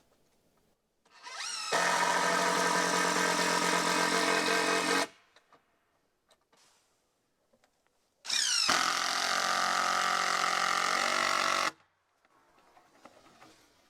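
Power drill driving screws into the wooden frame in two runs of about three and a half seconds each, each starting with a quick rising whine as the motor spins up, then holding a steady whir.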